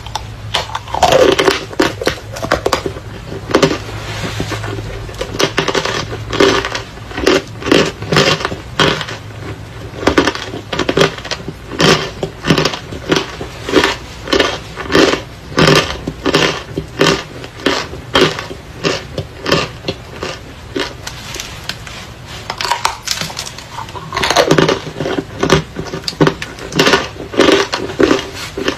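Dry chalk and clay pieces crunching again and again, a crisp crunch a little more often than once a second.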